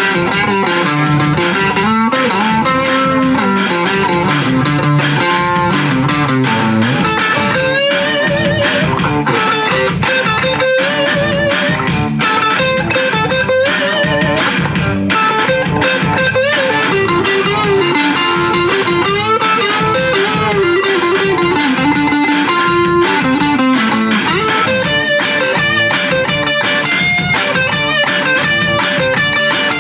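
Electric guitar played through a 1972 Sound City Mk4 amplifier: a continuous run of riffs and single-note melodic lines at a steady, loud level.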